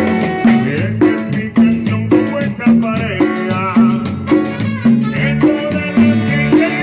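A live band playing an instrumental Mexican song with saxophones carrying the melody over a steady, bouncing bass line of about two notes a second and a shaker-like rattle.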